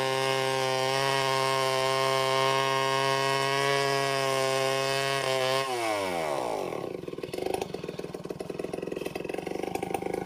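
Large two-stroke chainsaw running at full throttle as it rips lengthwise through a log in freehand milling. About six seconds in the throttle is released and the pitch falls away, and the saw settles into a rough, pulsing idle.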